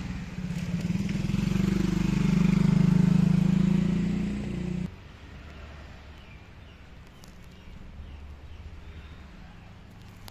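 A motor vehicle's engine passes close by, swelling to its loudest about three seconds in and then easing, before the sound cuts off suddenly about halfway through. After that only faint outdoor background remains.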